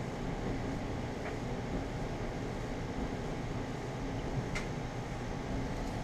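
Clothes dryer converted to a heat pump dryer with a ducted-in dehumidifier, running: a steady mechanical hum and whir with a steady tone, and a single short click about four and a half seconds in.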